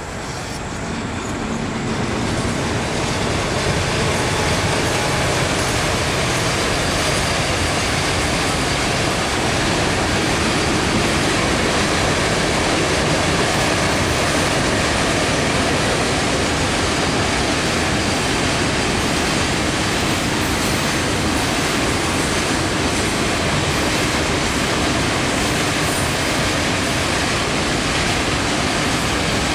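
Long freight train of BCNA covered wagons rolling across a concrete river bridge: a steady, loud rumble of wheels on the rails and bridge. It builds over the first few seconds as the train comes on, then holds without let-up.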